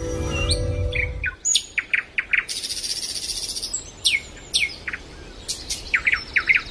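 Songbirds chirping: many short, high, down-sweeping chirps and a fast high trill. A sustained music chord dies away in the first second or so.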